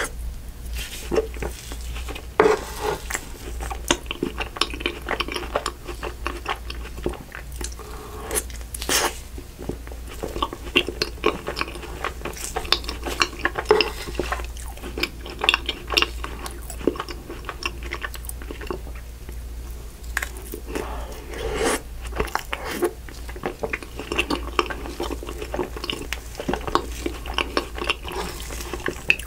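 Close-up eating sounds of soft creme brulee cookie non-dairy ice cream: wet chewing and lip smacks, with a metal spoon scraping and scooping through the ice cream. Many short clicks come and go throughout, over a steady low hum.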